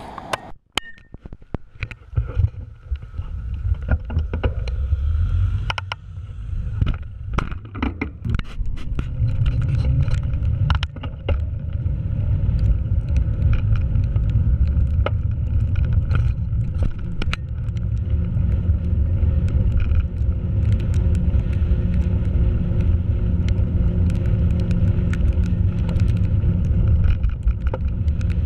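Muffled low rumble of a bicycle ride heard through a sealed waterproof camera housing, which blocks most sound but passes road vibration and wind buffeting. Sharp knocks and clicks in the first ten seconds or so as the camera is handled, then a steadier rumble.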